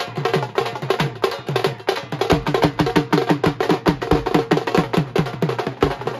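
Dhol and nagada drums played together in a fast, steady rhythm of several strokes a second, the low strokes dropping in pitch as they ring.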